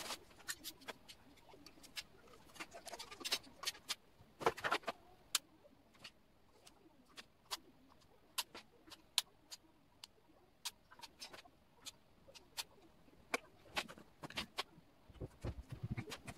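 Scattered light clicks and knocks at an irregular pace, some in quick clusters.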